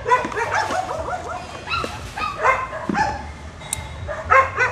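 Dogs barking and yelping in quick, repeated, overlapping calls.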